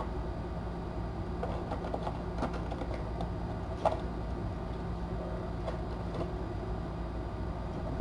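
Kittens scrabbling and moving about on a cardboard play castle: scattered light clicks and scratches over a steady low hum, with one sharper tap about four seconds in.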